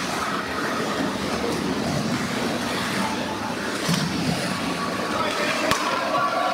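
Ice hockey play in an indoor rink: a steady scraping rumble of skates on the ice, with sticks and puck clacking and one sharp knock near the end.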